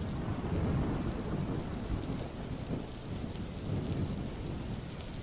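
Steady low rumbling noise with a light, rain-like patter, like rain and thunder in a storm.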